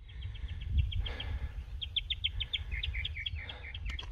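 A songbird singing a fast run of short, high repeated notes, about eight a second, that changes to lower, slurred notes past the halfway point, over a steady low rumble.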